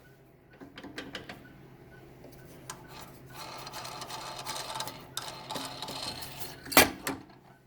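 A hammer tapping a steel wedge through the slot in a drill press spindle to drive the chuck off its taper: light clicks, then a rapid rattling clatter, then one sharp loud metal strike near the end as the chuck comes free.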